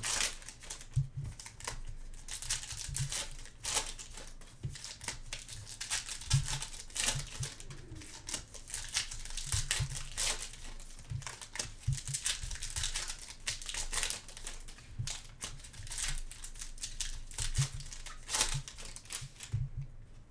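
Foil wrapper of a Panini Phoenix football card pack crinkling and tearing as gloved hands rip it open and peel it apart, a long run of irregular crackles with a few soft low knocks from handling. It stops just before the end.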